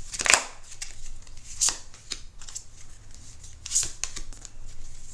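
Tarot cards being handled and drawn from the deck: a few sharp papery swishes of card sliding on card, the loudest about a third of a second in and others near two and four seconds in, with light ticks between.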